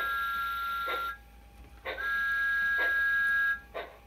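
Sound unit of a Bachmann large-scale Thomas the Tank Engine model locomotive: two long two-tone steam whistle blasts, about two seconds apart, over slow steam chuffs about once a second as the engine runs slowly.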